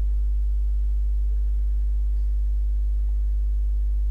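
Steady low electrical hum with a row of fainter overtones above it, unchanging throughout: mains hum picked up on the microphone line.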